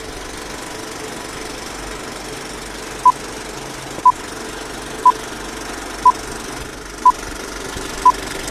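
Film-leader countdown sound effect: a film projector running with a steady mechanical rattle, and a short high beep once a second, six beeps in all starting about three seconds in.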